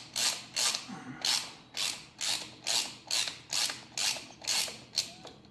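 Rhythmic strokes of a hand tool, about two a second, working on a motorcycle drive chain to take out a link; they stop about five seconds in.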